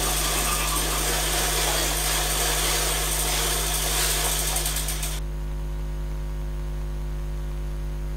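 Steady electrical mains hum under a dense rustling hiss that cuts off abruptly about five seconds in, leaving only the hum.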